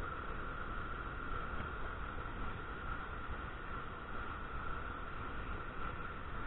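Steady rushing of spillway tailwater churning through a dam's outlet channel, an even noise with no breaks.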